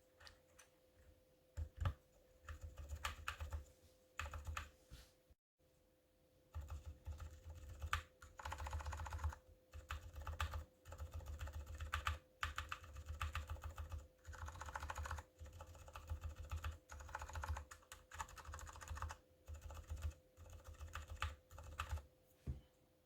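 Typing on a KBD75 mechanical keyboard with Gateron Silent Brown switches, a brass plate and PBT DSA keycaps. The keys are struck in bursts of rapid keystrokes with short pauses between them.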